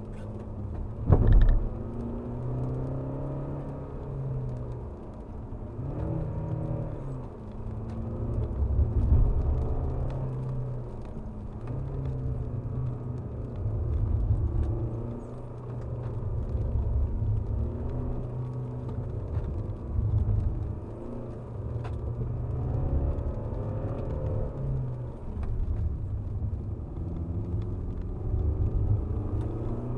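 Alfa Romeo Giulia's 2.2 four-cylinder turbodiesel heard from inside the cabin while being driven hard on a wet track. The engine note repeatedly climbs and drops as the car accelerates and lifts between corners, over a steady low rumble. There is a single loud thump about a second in.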